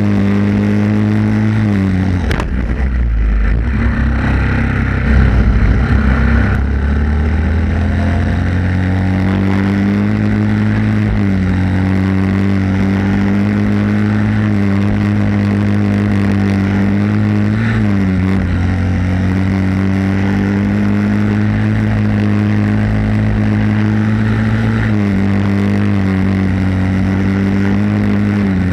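Racing go-kart's single-cylinder Briggs & Stratton flathead four-stroke engine heard from onboard, running at high revs. Its pitch drops off as it slows for corners and climbs back on the straights, with a rough, noisier patch a few seconds in.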